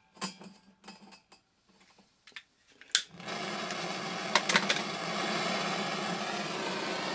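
A few light handling knocks, then a sharp click about three seconds in as a gas blowtorch lights, followed by the torch flame's steady hiss as it heats a probe tip for soft-soldering a steel ball in place.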